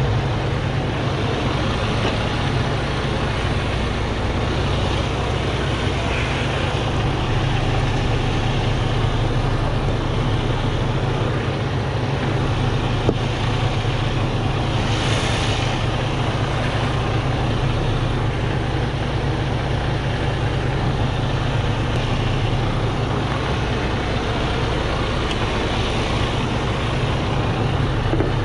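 Freightliner 122SD dump truck's diesel engine running steadily under way, with tyre and wind noise. A brief hiss comes about halfway through.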